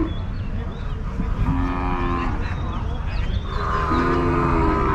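Cattle mooing: two steady, flat-pitched calls, one about a second and a half in and one near the end, each under a second long.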